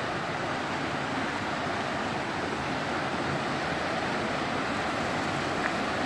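Steady rushing of a waterfall and mountain creek, an even hiss of falling water with no change in level.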